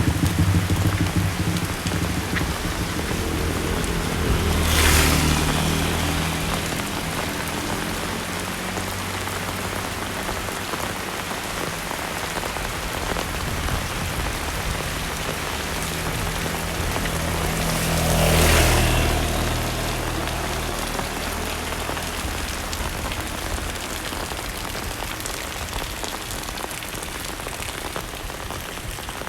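Heavy rain falling steadily on surfaces around the walker, with raindrops pattering throughout. An engine sound swells past twice, about five seconds and about eighteen seconds in, and the rain grows a little fainter near the end.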